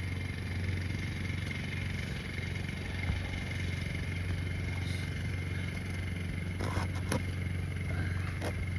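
A steady low machine hum, like an idling engine, runs throughout. A few sharp clicks and scrapes come in the last few seconds, from roofing nails being pried out of old, brittle asphalt shingles.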